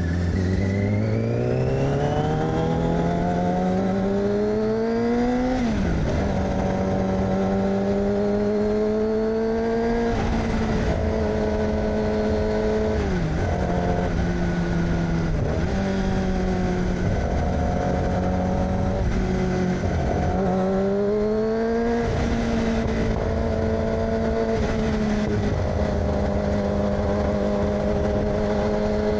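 2006 Yamaha R6's inline-four engine through an AR aftermarket exhaust, revving up steadily through a gear for about five seconds, then dropping sharply in pitch as it shifts up. It then runs at a fairly steady pace, with several brief throttle drops and pickups.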